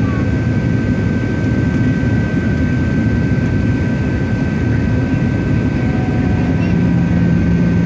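Cabin noise inside a Boeing 737-700 in flight: the steady roar of airflow and its CFM56 jet engines, with a thin high whine throughout. A low droning hum comes in near the end.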